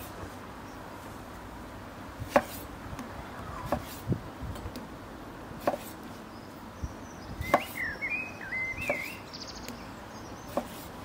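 Chef's knife slicing through tomatoes and knocking on a wooden cutting board: a few separate knocks, a second or more apart, as the tomatoes are quartered.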